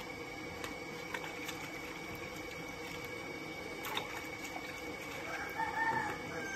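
Hands and a cloth sloshing and splashing in a bucket of water, with a few sharp clicks, over a steady hum. A short pitched sound rising and falling near the end is the loudest moment.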